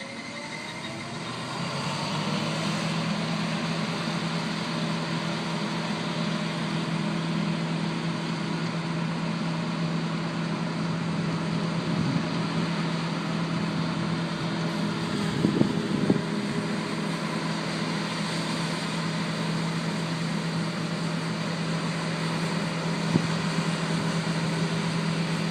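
Heavy harvest machinery's engine running steadily with a low hum and mechanical noise, growing louder over the first two seconds; a few brief knocks come through partway along.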